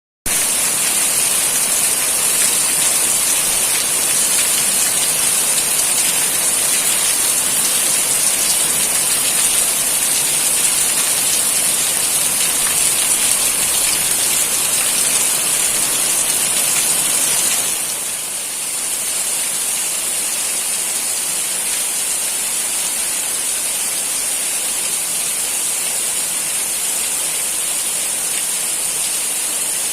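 Heavy rain pouring steadily, a dense even hiss with no thunder. It becomes slightly quieter a little past halfway.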